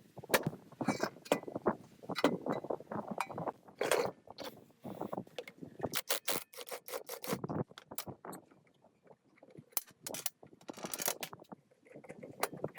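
Irregular clicks, knocks and short scrapes of metal parts being handled and worked by hand, with brief pauses between bursts of activity.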